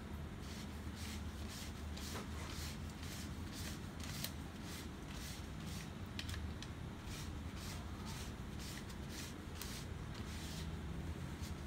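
Hands handling and rubbing the plastic parts of an HP LaserJet P3015 fuser assembly: a quick, uneven run of light rustling and scraping clicks, about two or three a second, over a steady low hum.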